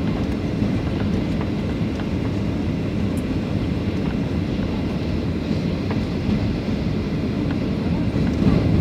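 Steady low rumble inside the cabin of a Boeing 737-800 on approach: its CFM56 jet engines and the airflow over the fuselage, heard from a seat over the wing. The noise swells a little near the end.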